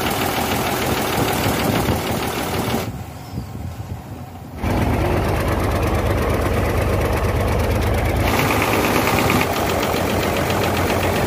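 Hino J08C truck diesel engine running, cut together from several short clips, with one quieter stretch about three seconds in. The engine has an abnormal noise and back compression (blow-by) after overheating, pushing oil out of the dipstick tube.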